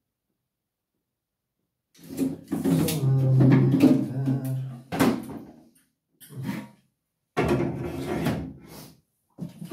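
Objects scraping, rubbing and knocking as they are handled, in several bursts with short gaps, with a sharp knock about five seconds in.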